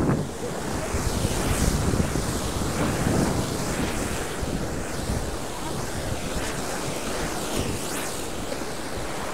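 Wake waves from a passing ship surging and breaking over a riverside jetty and fence, washing over small boats, with wind buffeting the microphone.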